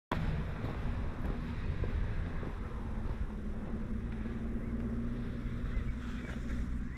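Honda CRF250 Rally's single-cylinder engine running steadily, with wind buffeting the microphone.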